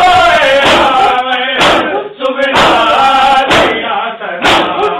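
A group of men chant a noha, a mourning lament, together. Sharp chest-beating strokes (matam) land on the beat about once a second.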